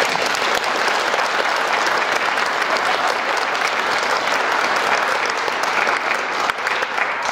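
Theatre audience applauding, a dense, steady clatter of many hands clapping that thins out just at the end.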